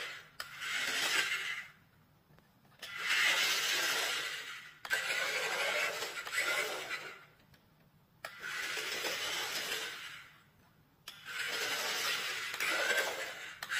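A toy race car's plastic wheels rolling across a hardwood floor, in bursts of one to three seconds with short quiet gaps between.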